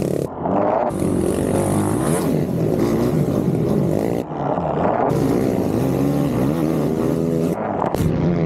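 Motor vehicle engine revving up and down over and over, its pitch rising and falling. The sound breaks off abruptly a few times where the track is spliced.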